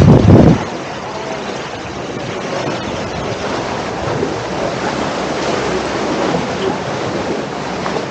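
Wind buffeting the microphone, stopping about half a second in, then a steady wash of waves on the shore.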